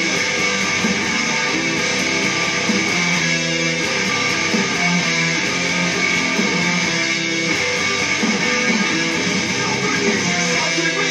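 Electric guitar playing a continuous, fast-picked riff of a metalcore song, heard through a webcam microphone.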